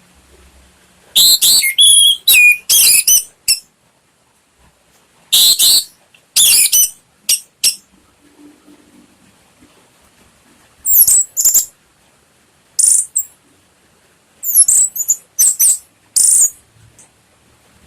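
Orange-headed thrush singing: loud, high, rapidly varied song phrases in short bursts, with pauses of one to three seconds between them.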